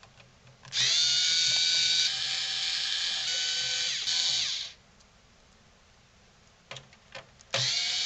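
Small electric screwdriver backing out the screws that hold a PlayStation 4's power supply. It gives a steady motor whine for about four seconds, then a few small clicks, then a second run near the end.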